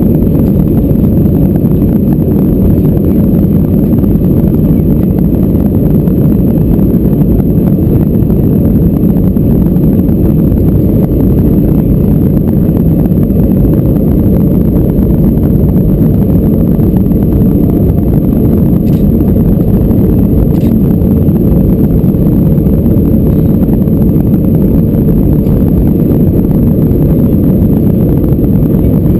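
Inside the cabin of an Airbus A320-214 on its takeoff roll: the CFM56 engines at takeoff thrust and the runway rumble make a loud, steady, deep noise, running on through liftoff near the end.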